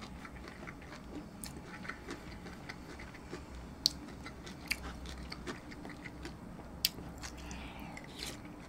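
Close-miked chewing of braised pork rib meat and kimchi: soft, wet mouth sounds with a few sharp clicks scattered through.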